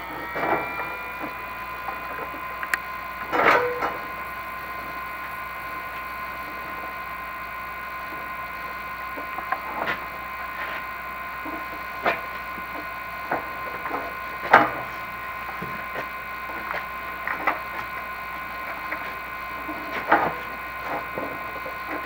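Electric motor of a chimney-inspection camera rig running at a steady whine while the camera is hauled back up the flue, with scattered knocks and scrapes as the camera head bumps the flue walls.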